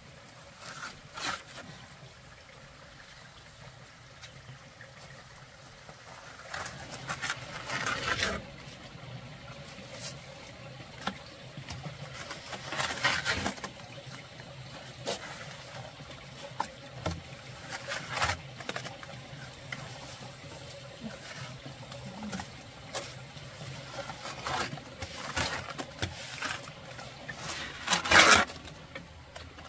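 Water splashing and trickling in irregular bursts, some louder than others.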